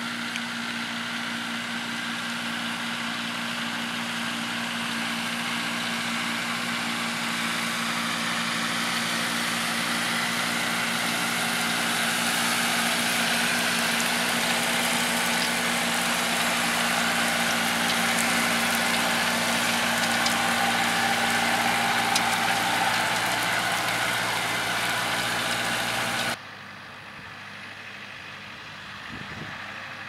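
John Deere 6130R tractor's diesel engine running steadily under load while pulling a four-furrow plough, gradually getting louder. About 26 seconds in, the sound cuts abruptly to a quieter tractor engine.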